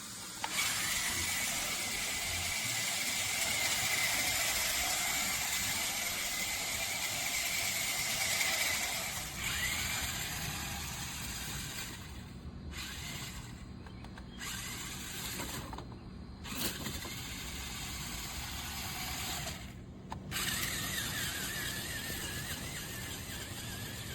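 Small electric motor and gearbox of a 1:18 RC rock crawler whining as it drives, with a steady high whine for about the first nine seconds. The sound changes after that and drops out briefly four times.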